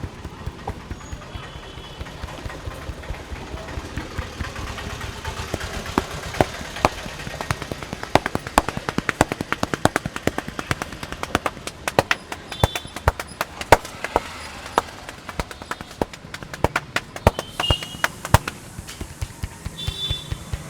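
Rapid, irregular sharp slaps and clicks of a barber's hands working on the head in an Indian head massage, starting about six seconds in and running for most of the rest. Steady street noise lies underneath.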